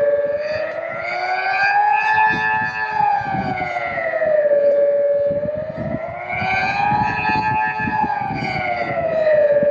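Swiss civil defence siren sounding the general alarm: a loud wailing tone that rises and falls slowly, about five seconds per cycle, peaking twice.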